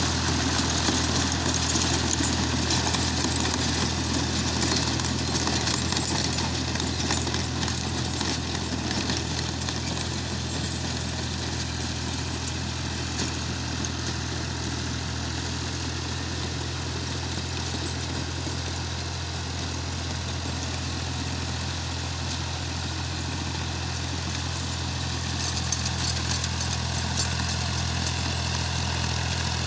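Ghazi tractor's diesel engine running steadily under load as it drives a rotavator, with a hiss of the blades churning the soil. A little fainter in the middle and louder again near the end.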